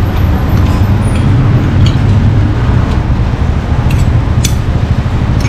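Steady low rumbling background noise, with a few light clinks of spoons and forks against plates.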